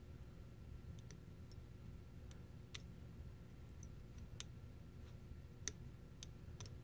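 Faint, irregular light clicks and ticks from fly-tying hand work: thread being wrapped around the hook with a bobbin to build up the fly's head. Under them is a low steady room hum.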